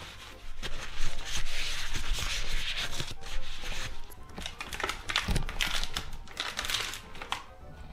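Paper towel rubbing and wiping close to the microphone: an uneven dry scrubbing noise in repeated strokes that starts about half a second in and dies away near the end, with music underneath.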